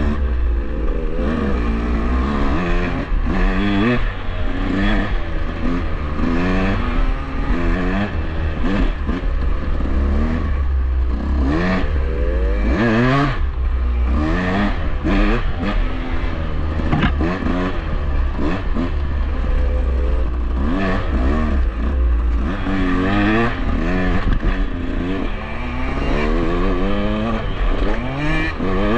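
KTM dirt bike engine revving up and down without a break as the throttle is worked along tight singletrack, with wind rumble on the microphone and scattered clatter from the bike over rough ground.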